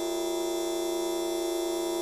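Fart sound effect time-stretched into a steady, unchanging drone, many held tones over one another like a synthesizer hum.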